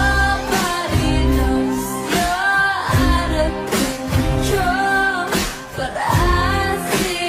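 Pop song with sung vocals over a steady beat.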